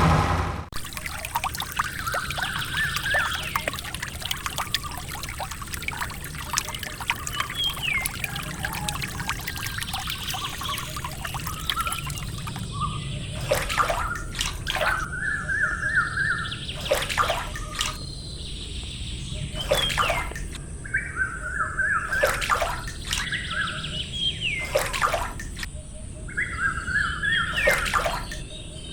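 Birds singing in short repeated trilled phrases, about every two to three seconds, over a steady trickle of running water.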